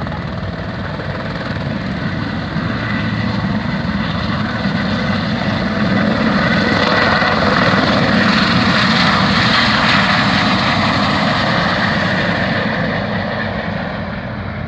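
A helicopter departing at close range, its rotor and engine noise growing louder to a peak about midway, then fading as it leaves.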